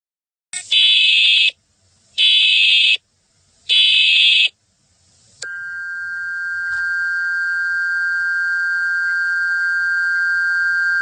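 Emergency Alert System alert opening: three short bursts of data header, each about a second long, then a steady two-tone attention signal that starts about five seconds in and keeps sounding.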